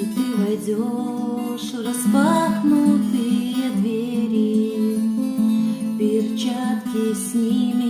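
Acoustic guitar playing an instrumental passage: steady chords with a melody line sliding above them.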